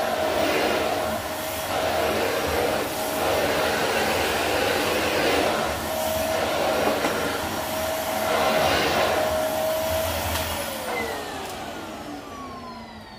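Dyson vacuum cleaner running, with its steady motor whine and rushing suction through the hose nozzle swelling and easing every second or two. About ten seconds in it is switched off and the motor winds down, its whine falling in pitch as the sound fades.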